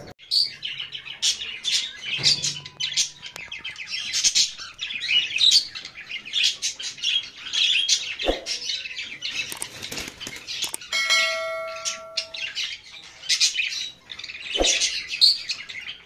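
Many caged small parrots, cockatiels among them, chirping and twittering without a break. About eleven seconds in, a steady ringing tone holds for about a second and a half, and two sharp clicks stand out, one about eight seconds in and one near the end.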